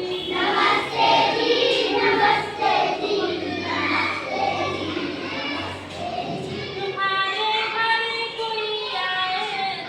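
A children's song: young voices singing over a musical backing, with longer held notes in the last few seconds.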